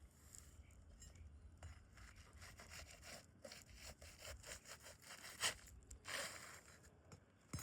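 Asphalt roof shingles being pried up and worked loose: quiet scraping and rubbing with scattered small clicks, and one sharp snap about five and a half seconds in.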